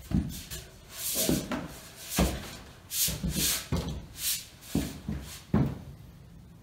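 Irregular clunks, scrapes and shuffling of a length of black stovepipe being picked up and raised overhead by hand, about a dozen knocks and rubs, thinning out near the end.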